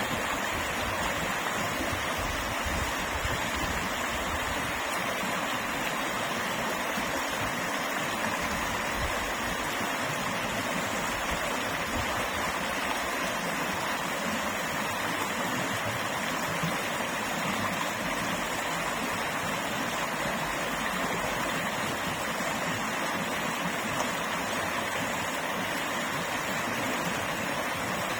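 Creek water flowing over rocks: a steady, even babbling rush.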